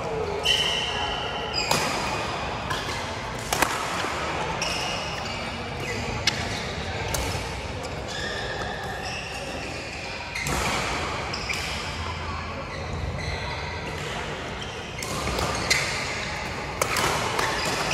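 Badminton play: short high squeaks of court shoes on the floor, with sharp racket hits on the shuttlecock every second or few.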